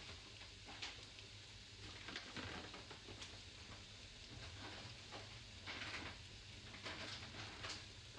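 Scattered faint clicks, knocks and rustles of things being handled in a low kitchen cabinet, over a steady low hum.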